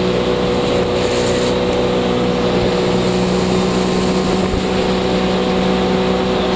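Tow boat's engine running at a steady towing speed, a constant drone with the rush of water and wake beneath it.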